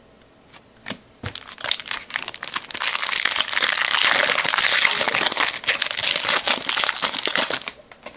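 A foil-lined trading card pack wrapper crinkling as it is torn open by hand. A few light clicks come about a second in, then dense crinkling runs for several seconds and stops shortly before the end.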